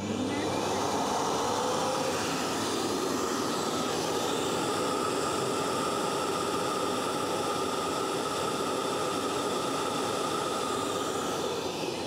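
Roidmi EVA robot vacuum docked in its self-cleaning base station, running the wash cycle that cleans its brushes and mop pad. It makes a motor whir that rises in pitch over the first couple of seconds, then runs steadily with a high whine and starts to wind down right at the end.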